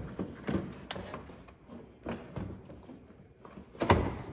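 Scattered light clicks and knocks of hands and tools working on engine intake parts and hose clamps, with a louder knock about four seconds in.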